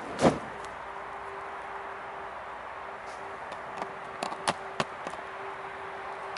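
A burning PVC faux-leather jacket drops from a branch onto the forest floor with one loud thump about a quarter-second in. A few sharp clicks and cracks follow around four to five seconds in, over a steady hiss.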